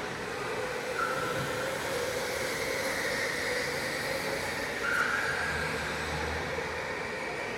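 Electric racing go-karts running on an indoor track: a steady whine of motors and tyres, with short higher-pitched squeals about a second in and again about five seconds in.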